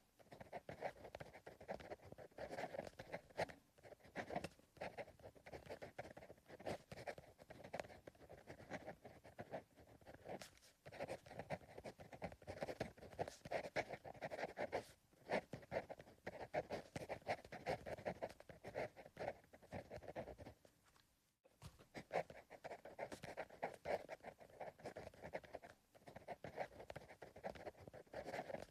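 Pencil writing on paper: soft, irregular scratching strokes in runs of a few seconds, with short pauses between them.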